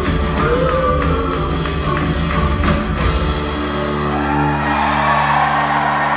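Live band of drums, upright bass, electric guitar and keyboards, with a woman singing, playing until about three seconds in. It then holds a final sustained chord while the crowd starts cheering and whooping: the end of a song.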